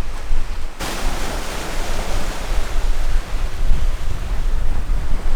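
Water rushing past the hull of a sailing yacht moving fast, with wind buffeting the microphone. A loud hiss of rushing water and spray starts suddenly about a second in.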